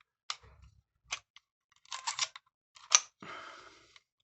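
Zeiss Werra 1 35mm camera being worked by hand to advance the film: a series of small mechanical clicks, the loudest and sharpest about three seconds in, followed by a brief grating rattle.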